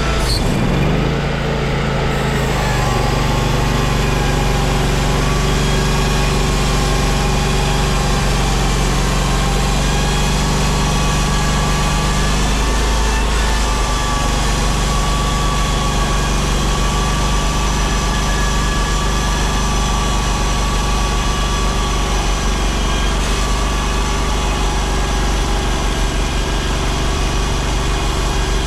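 Timberking 1600 band sawmill's engine running steadily, with small shifts in its pitch a couple of seconds in and again about thirteen seconds in.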